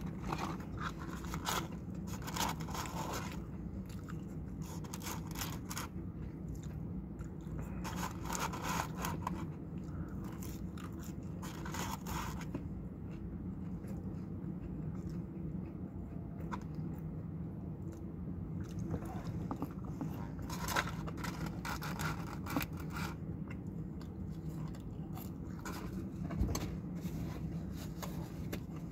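A person chewing fast-food fries and chicken nuggets close to the microphone, in bursts of crunching every few seconds, with paper packaging rustling. A steady low hum runs underneath.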